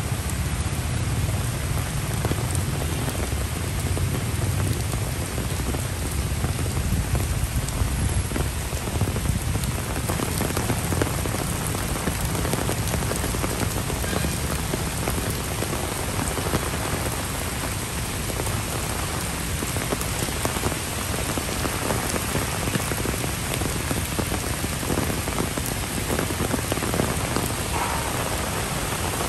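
Heavy tropical rain falling steadily on trees, lawn and a paved brick path: a dense, even hiss with a low rumble underneath.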